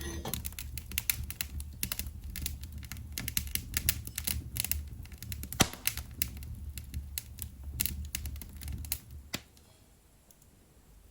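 Firewood burning hard in a fireplace, crackling with dense, irregular pops and snaps over a low steady rumble. The sound drops away abruptly about nine seconds in.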